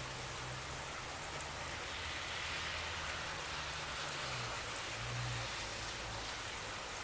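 Heavy rain falling steadily in a thunderstorm downpour, with scattered ticks of single drops.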